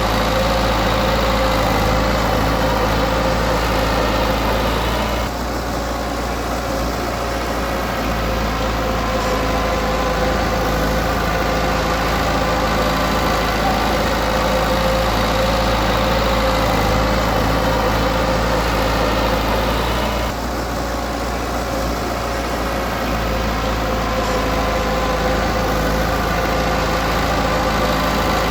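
Komatsu D20P bulldozer's diesel engine running steadily, with a brief drop in level about five seconds in and again about twenty seconds in.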